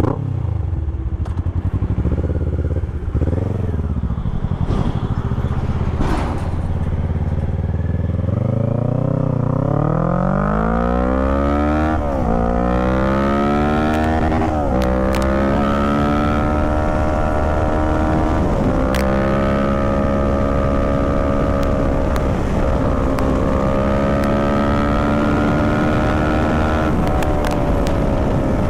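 Kawasaki Z650's 649 cc parallel-twin engine making a full-throttle run from a standstill. After a few throttle blips at idle it launches, and its note climbs steeply in each gear and drops sharply at every upshift. The rises get longer and flatter in the higher gears as it nears top speed.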